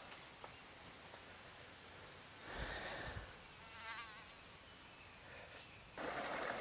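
A flying insect buzzes briefly past the microphone about four seconds in, its pitch wavering. The background is otherwise faint. Near the end the steady rush of a small stream over rocks comes in suddenly.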